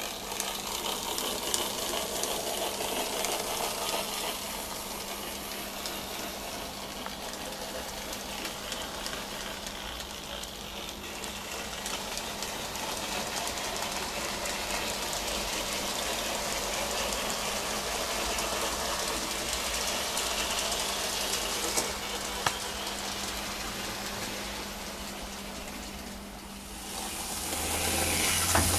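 Graham Farish N gauge Stanier 8F model locomotive running with a long train of wagons: a steady running noise of the small motor and the wheels on the track, with a low steady hum. It grows louder near the end as the train comes close.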